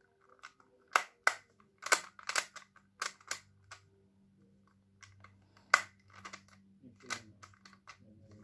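Sengso Rubik's Clock puzzle being handled: irregular sharp plastic clicks as its dials are turned and its pins pushed, the loudest about a second in, near two seconds and near six seconds.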